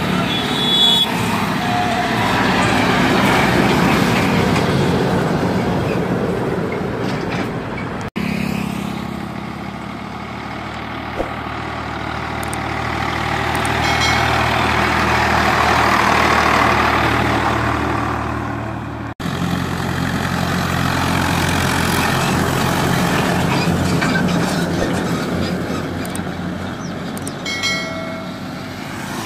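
Diesel farm tractors hauling heavily loaded sugarcane trolleys past on a road, engines running steadily under load. Each pass swells and then fades, in three takes that break off abruptly about 8 and 19 seconds in.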